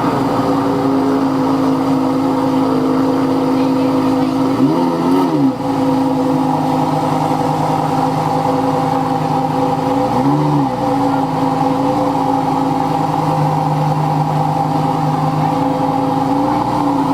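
Lamborghini engine idling steadily, with short blips of the throttle: two clear revs about five and ten seconds in, and smaller ones later.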